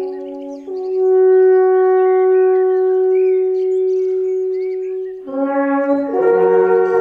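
Background music of long, held horn notes, one pitch at a time. About five seconds in, a fuller brass chord with several instruments and lower notes comes in.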